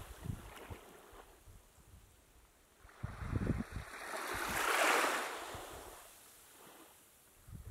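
A small wave washing up the sand: the rush swells about three seconds in, peaks around the five-second mark and fades away. Low rumbles of wind on the microphone come and go.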